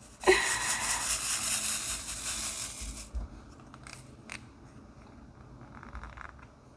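Crinkling, rustling noise of diamond-painting supplies being handled for about three seconds, then a couple of faint clicks.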